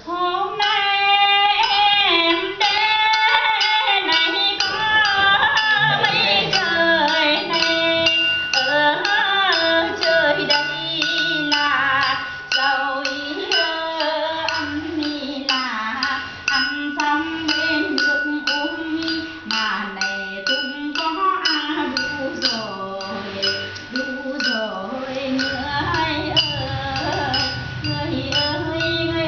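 A woman singing a slow Vietnamese folk song, with long held notes that slide and waver in pitch. A low hum joins in near the end.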